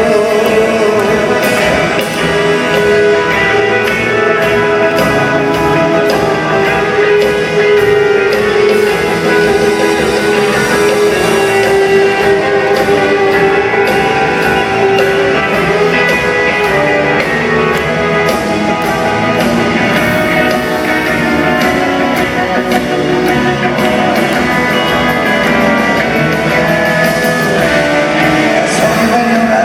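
Rock music led by guitar, with a steady beat and held notes.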